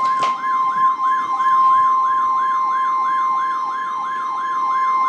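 NOAA Weather Radio warning alarm tone, a steady 1050 Hz beep that signals a warning-level alert, sounding through a Midland WR-400 weather radio. A warbling siren sweeps up and down over it about four times a second.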